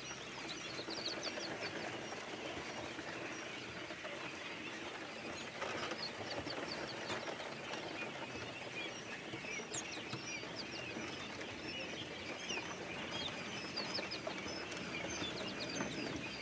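A brood of three- to four-day-old quail chicks peeping: many short, high cheeps overlapping in a constant chatter.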